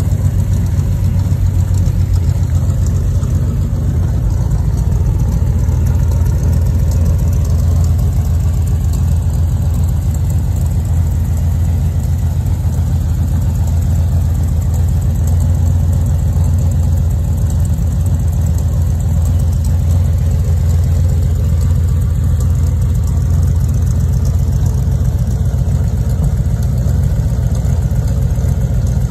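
1974 Ford F100's 360 V8 engine idling steadily.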